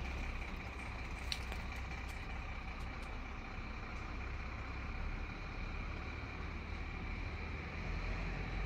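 Diesel truck engine idling: a steady low hum, with a faint high whine and a few light clicks.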